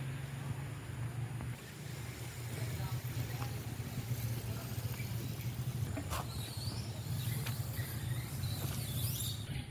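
Steady low rumble of distant road traffic, with a few faint high chirps over it in the second half and a single sharp click about six seconds in.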